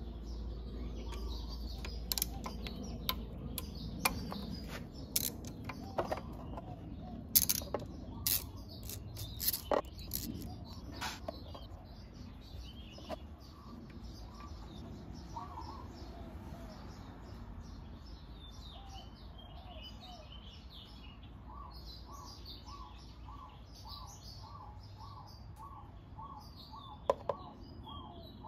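Sharp metal clicks and knocks of a ratchet and 12 mm socket working loose the final-drive drain bolt on a Honda PCX 150 scooter, about a dozen spread over the first ten seconds or so. Birds chirp throughout, and in the second half one bird repeats a short call about twice a second.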